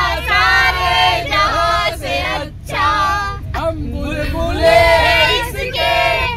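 A group of men and women singing together loudly inside a bus, breaking off briefly twice, over the low steady rumble of the bus.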